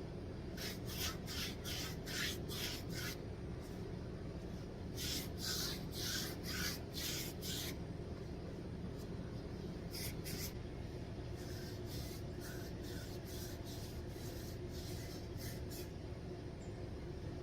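Paint roller worked back and forth over rough concrete, spreading stain: short rasping strokes, about three a second, in several runs with pauses between.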